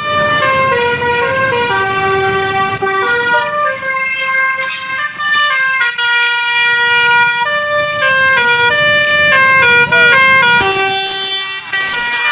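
Basuri telolet bus horn with roof-mounted upper trumpets playing a tune of held notes that step from one pitch to the next, several tones sounding at once. It cuts in suddenly at the start.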